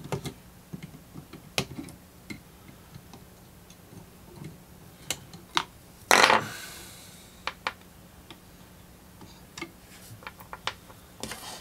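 Wire cutters snipping the leads of old capacitors in a tube amplifier chassis: a scatter of small clicks and snips, with one louder clatter and a short ring about six seconds in.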